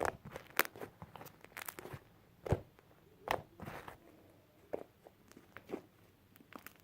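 Fluffy slime being squeezed and handled, giving irregular short pops and crackles, one or two a second, the loudest about halfway through.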